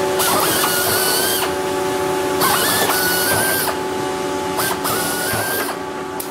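Pneumatic air drills drilling through pilot holes in the aluminium wing skin into the wing spar. There are three runs of about a second each, and each begins with a whine that rises as the drill spins up.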